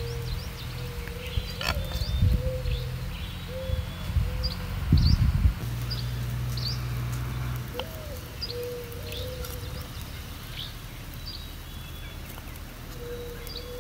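Wild birds chirping in short high calls every second or so, over a lower repeated call. A few dull thumps come in the first half, and two sharp knocks of a knife on a wooden chopping board.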